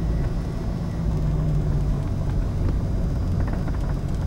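A vehicle's engine and rolling noise heard from inside the cab: a steady low drone while the vehicle moves slowly.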